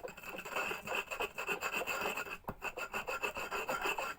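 Lime leaves and garlic being ground with a little water under a pestle in a mortar: quick, repeated rubbing and scraping strokes, with a brief pause just past halfway. The mix is nearly a fine paste.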